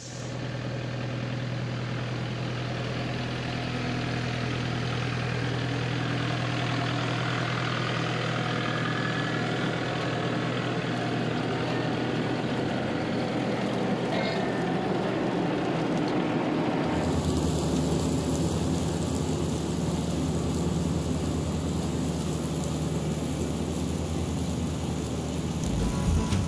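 Kubota L4060 tractor's diesel engine running steadily under load while driving a rear finish mower, with a steady hum. The tone of the sound shifts about two-thirds of the way through.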